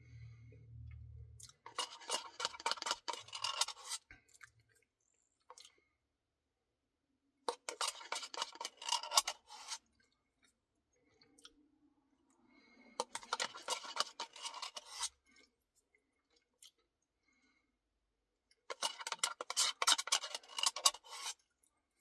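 Close-up mouth sounds of chewing a spoonful of Dairy Queen cookie Blizzard ice cream. They come in four bursts of dense crackling, each about two seconds long, a few seconds apart.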